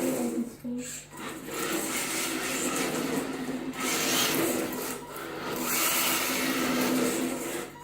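Electric RC car's motor and drivetrain whirring as it drives, rising and falling with the throttle and easing off briefly about a second in.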